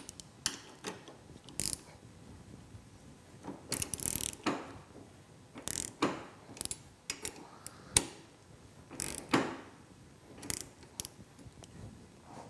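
Hand ratchet wrench clicking in short, irregular bursts as the bolts of a snowmobile's handlebar riser mount are tightened.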